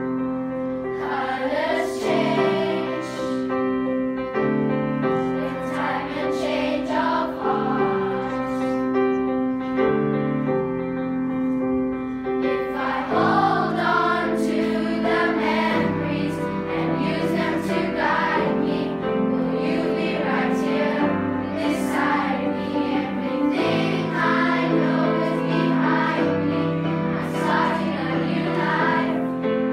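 A children's choir singing a song together, accompanied by a grand piano. The sound fills out with lower notes entering a little under halfway through.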